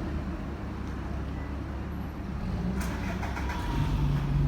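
Alexander Dennis Enviro200 bus's diesel engine running with a low rumble, which grows louder into a steadier drone near the end.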